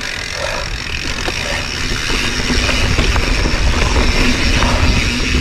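Mountain bike riding over dirt singletrack: tyres rumbling and the bike rattling over the trail, with wind buffeting the action-camera microphone. Small clicks and knocks from the bike come through the steady noise.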